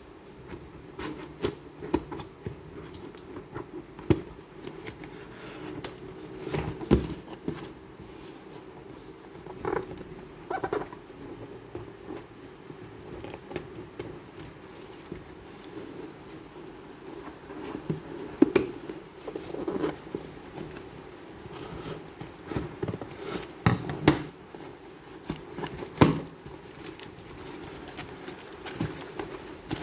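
Scissors snipping and packaging being handled while a doll is unboxed: irregular clicks, snips and rustles of cardboard and plastic.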